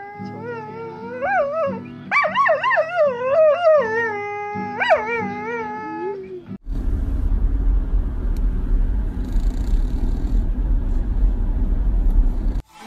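A dog howling along to a strummed acoustic guitar, in three long wavering, gliding notes. About six and a half seconds in it cuts off and a steady low rumbling noise takes over.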